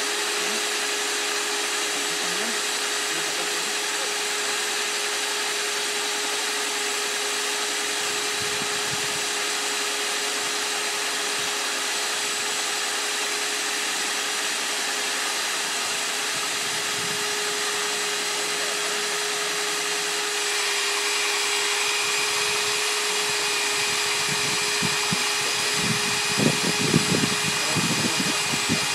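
Stand-mounted diamond core drill running steadily as it bores a core out of a concrete block: a constant motor hum with a steady whine. About 20 seconds in a higher whine joins and the sound grows a little louder, and near the end a short run of uneven low knocks and grinding comes through.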